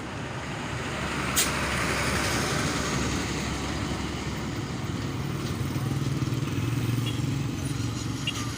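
A motor vehicle running, with engine and road noise. There is a sharp click about a second and a half in, and a low steady drone strengthens near the end.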